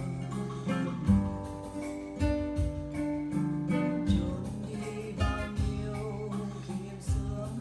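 Instrumental passage of a slow song, led by guitar with plucked and strummed notes over held bass notes and a beat about once a second.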